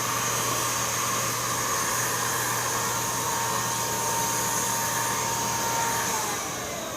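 Electric paint spray gun motor running with a steady whine, then switched off near the end, its pitch gliding down as it spins down. The owner finds it gives no spray pressure at all.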